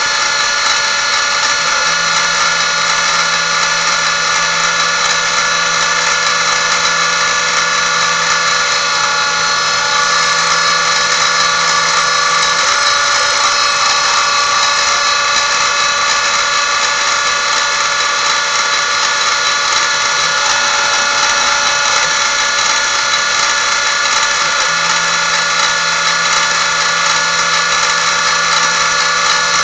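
Small benchtop milling machine's spindle running steadily with a high motor whine as its twist drill feeds down into a bar held in the vise. A low hum joins a couple of seconds in, drops out around the middle and comes back near the end.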